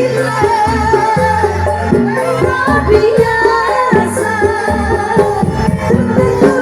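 Stage music with singing and percussion.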